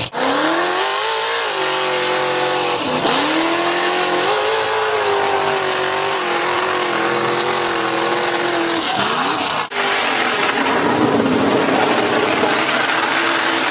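Mud bog truck's engine revving hard as it churns through a mud pit, the pitch climbing and dropping several times as the throttle is worked. The sound cuts out for an instant near the start and again about ten seconds in, and the last few seconds are louder and rougher.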